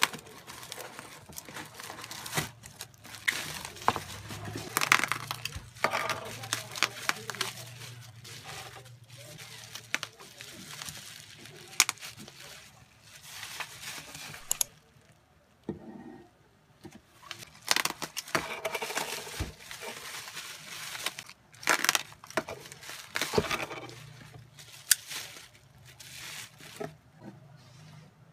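Plastic bubble wrap crinkling and rustling as it is pulled out of a cardboard box and peeled off oval trays, with scattered sharp taps from the handling. The rustling drops away briefly about halfway through, then starts again.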